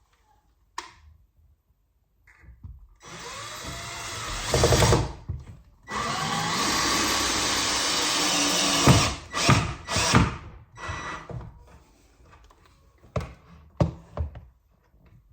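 Power drill running into wood in two runs of about three seconds each, pre-drilling or driving screws for a door hinge, followed by a few sharp knocks and clicks.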